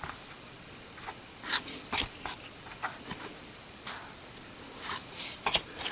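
1990 Score football cards being handled and slid against one another, a string of short scrapes and flicks at irregular intervals.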